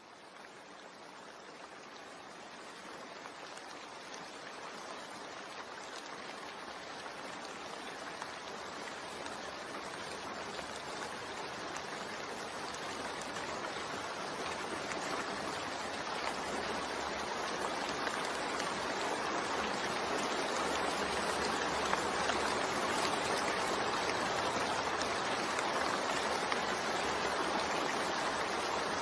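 Steady rain, an even hiss of falling water, fading in from near silence and growing gradually louder throughout.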